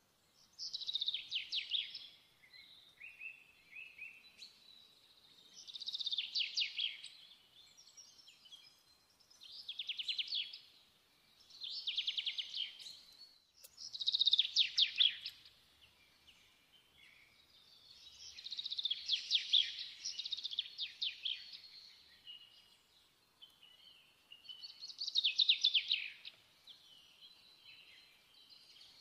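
A songbird singing: short phrases of rapid trilled notes that sweep downward, repeated every few seconds.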